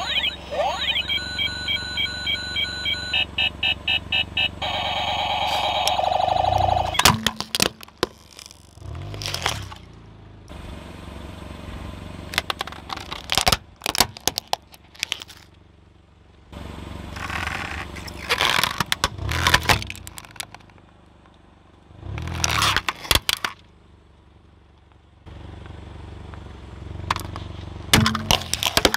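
A car tyre rolling slowly over toys and food on asphalt, crunching and cracking them in several bursts, over the low hum of the idling car. For the first several seconds a pulsing electronic beeping and a run of tones are heard.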